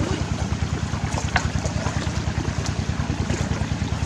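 A small engine running steadily with an even, rapid pulse.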